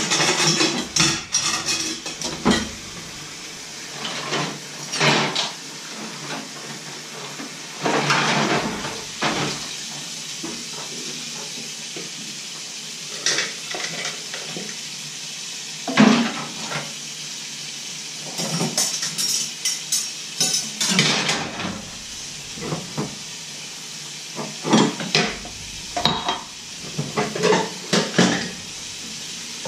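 Ceramic plates, bowls and cups clattering and clinking against each other and the stainless steel sink as dishes are washed by hand and stacked, in irregular bursts, over a steady low hiss.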